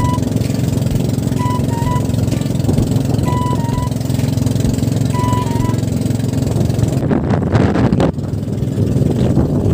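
Engine running steadily with a constant low drone, and a simple melody of short high notes playing over it. About seven seconds in there is a brief louder rush of noise.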